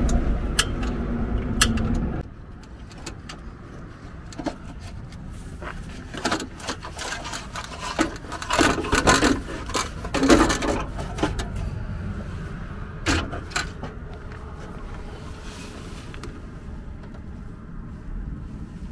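The Magirus Deutz truck's air-cooled Deutz diesel engine idling, then switched off about two seconds in; the truck has an engine fault, with smoke coming out of the oil breather. After it stops, a scatter of metallic clinks, knocks and scrapes, busiest around the middle.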